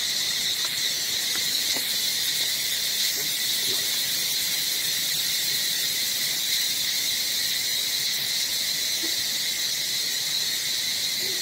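A steady, high-pitched insect chorus drones without a break, with a few faint short squeaks here and there.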